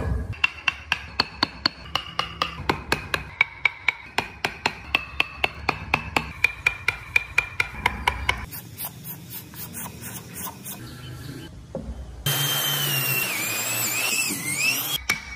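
Rapid, even tapping, about five strikes a second, of a chisel being driven into wood. About twelve seconds in, an electric drill starts boring into wood, a loud steady running noise with a wavering whine, stopping just before the end.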